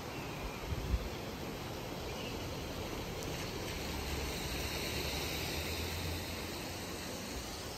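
Steady rushing of a shallow rocky mountain river, with a couple of low bumps about a second in and a faint low rumble for a few seconds in the middle.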